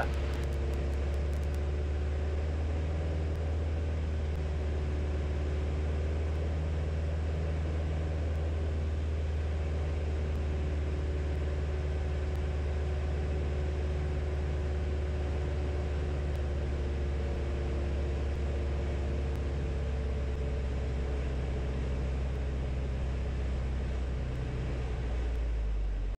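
Single-engine light aircraft's piston engine and propeller heard from inside the cockpit as a steady low drone during the final approach and landing. The pitch shifts slightly a few times as power is adjusted. The sound cuts off suddenly at the very end.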